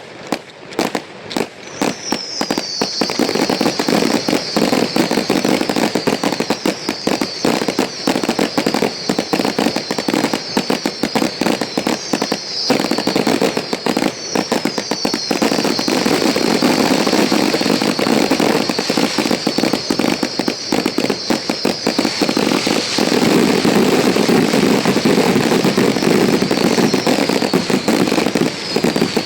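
Aerial fireworks display at full intensity: a dense, near-continuous barrage of bangs and crackling, with high falling whistles every couple of seconds, building from about two seconds in and loudest near the end.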